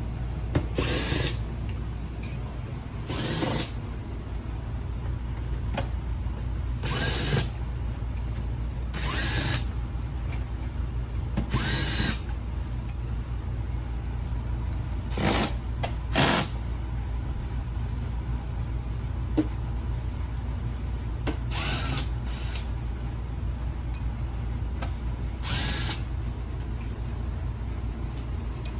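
Power screwdriver backing out the small Phillips screws of a car navigation unit's case in short whirring bursts, about ten in all, over a steady low hum.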